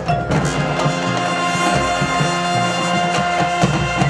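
High school marching band's brass section holding a long, loud chord, which cuts off near the end.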